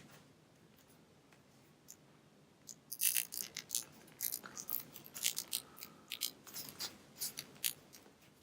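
Small plastic clicks, taps and scrapes of action-figure parts being handled, starting about three seconds in, as a swap-out hand is fitted onto the figure's wrist.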